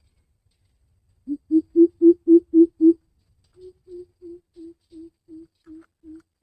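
Greater coucal giving its deep hooting call: a fast run of seven loud, low hoots starting about a second in, then a quieter, slightly slower run of evenly spaced hoots.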